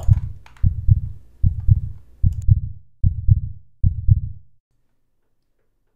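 Heartbeat sound effect: low double thumps, lub-dub, about every 0.8 s, five beats, stopping about four and a half seconds in.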